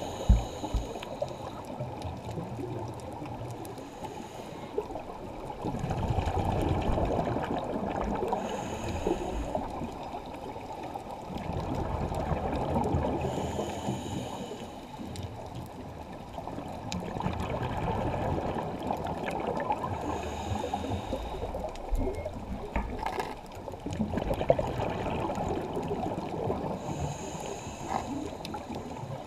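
Scuba breathing heard underwater through a camera housing: a regulator hiss on each breath and gurgling bursts of exhaled bubbles, in a slow cycle of a breath about every six seconds.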